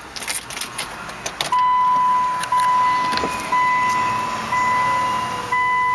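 A few light clicks, then a dashboard warning chime in a 2004 Land Rover Freelander: a steady high beep that starts about a second and a half in and repeats about once a second.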